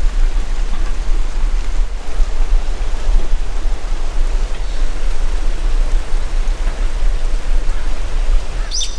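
Steady rain falling, an even hiss with a low rumble underneath, and a short high chirp near the end.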